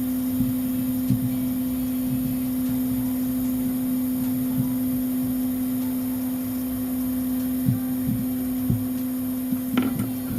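Hot air rework gun blowing with a steady hum, while small metal tools tap and click on the phone board now and then, several times near the end.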